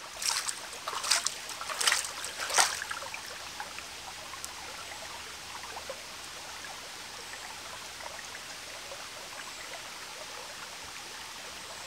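Water scooped by hand and splashed onto a stone ledge in a shallow stream, four or five splashes in the first three seconds, then the stream's steady trickling.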